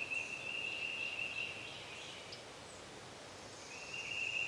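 A high, even trilling call from a bird or insect, heard twice: the first trill ends under two seconds in and the second starts near the end, over faint outdoor background hiss.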